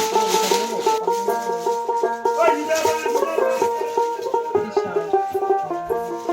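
Background music with quick, evenly repeating plucked-string notes.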